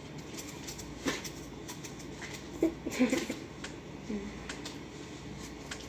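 Light scrapes and sparse clicks of a kitchen knife paring something held in the hand, about half a dozen small clicks spread across a few seconds.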